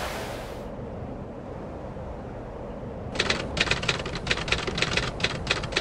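Low background noise, then about halfway a rapid, irregular run of sharp clicks lasting about three seconds.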